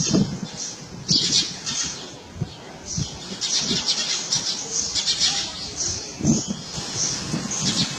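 Birds at a feeding place chirping in repeated short bursts, mixed with wings flapping.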